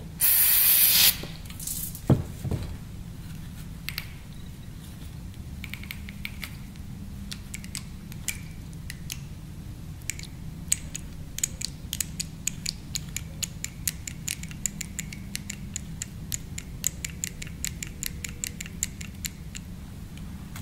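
A one-second hiss of brake cleaner sprayed from an aerosol can into a CAV diesel injection pump, then many quick, uneven metallic clicks as the pump's rotor assembly is turned and handled by hand. A low steady hum runs underneath.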